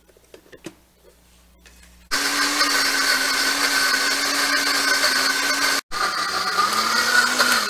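Suvio countertop blender puréeing cooked asparagus in its liquid. A few light knocks come as the jar is seated on the base, then about two seconds in the motor starts abruptly and runs at high speed with a steady whine. The sound drops out for an instant and its pitch rises slightly near the end.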